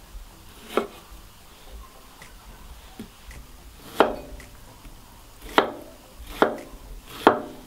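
Kitchen knife cutting a yellow tomato into cubes on a wooden cutting board: about five separate knocks of the blade on the board, spaced a second or so apart.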